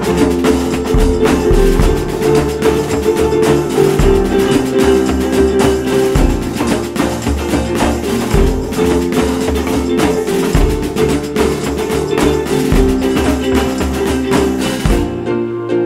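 Background music with a steady beat, led by guitar with percussion. Near the end the high, bright sounds drop away as the music turns to a softer passage.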